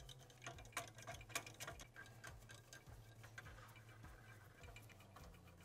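Faint, irregular clicking of a hand ratchet turning out the cover bolts of an ATV CVT drive clutch.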